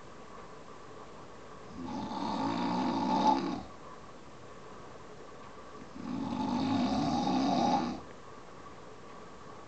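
A sleeping person snoring: two long snores, about four seconds apart, each lasting roughly two seconds, with quieter gaps between.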